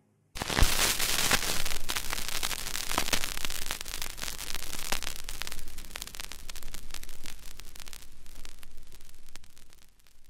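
Portable record player's stylus riding the run-out groove of a vinyl LP at the end of the side: crackle, pops and hiss with no music, starting suddenly about half a second in and getting somewhat quieter in the last couple of seconds.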